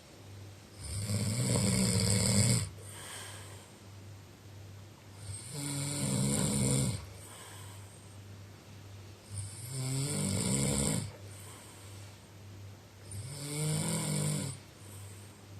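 Snoring: four loud, drawn-out snores, each about a second and a half long and roughly four seconds apart, with quieter breathing between them.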